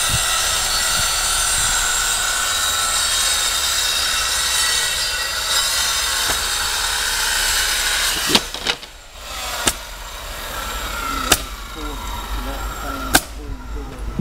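A power tool running steadily with a high whine, which stops about eight seconds in, followed by five sharp knocks spread over the last six seconds, typical of work on a siding installation.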